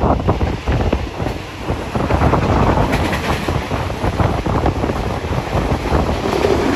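Wind buffeting a microphone held out of a moving passenger train's window, over the rumble and clatter of the carriage running on the rails.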